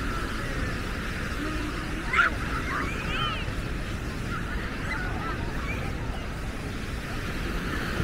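Baltic Sea surf washing onto the beach as a steady noise, with a few short honking bird calls a couple of seconds in.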